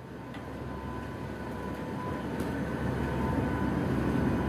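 Cabin noise inside a NOAA WP-3D Orion turboprop hurricane hunter in flight: a steady engine and propeller drone with a couple of thin high tones, growing gradually louder, with a few faint rattles.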